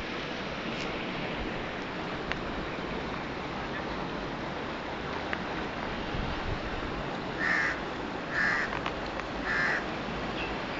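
A crow cawing three times, about a second apart, near the end, over a steady rushing background noise.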